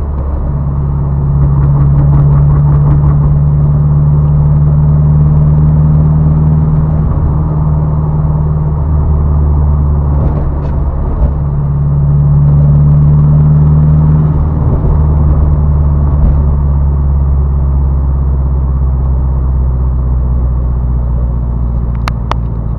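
Turbocharged car engine idling steadily at an even pitch, growing louder twice for a few seconds, with a few sharp clicks near the end.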